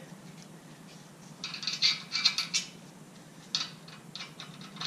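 Light metallic clinking and rattling of steel engine-hoist parts and bolt hardware as a support arm is fitted to the hoist's base: a burst of short clinks about a second and a half in and a brief one near the end.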